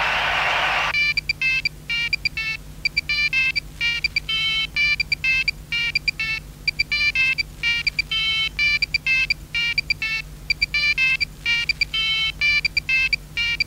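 Electronic beeping in quick rhythmic groups, like a mobile phone ringtone: short tones at one high pitch, starting about a second in over a faint low hum.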